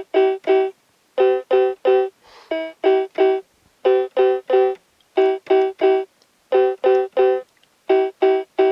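Cheap electronic keyboard playing the same short chord three times in quick succession, then pausing, over and over in an even rhythm of about one group every 1.3 seconds.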